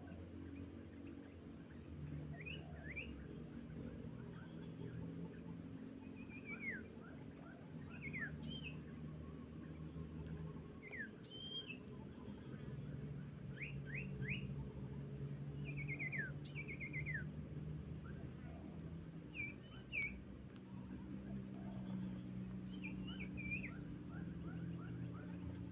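Small birds giving short, high chirps, single notes and quick runs of three or four every second or two, over a steady low background rumble.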